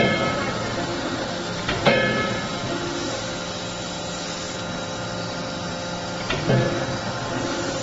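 A 40 kJ CNC hydraulic closed-die forging hammer strikes a hot workpiece in the die three times: right at the start, about two seconds in, and after a longer pause about six and a half seconds in. Each blow is a sharp bang followed by metallic ringing, over a steady machine hum.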